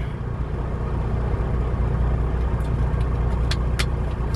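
Semi-truck running steadily, a low engine and road rumble heard inside the cab, with two short sharp clicks near the end.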